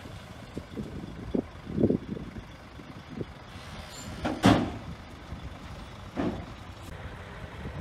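Heavy earthmoving machinery working: a low rumble with scattered irregular knocks and thumps, and a louder sharp clank about four and a half seconds in.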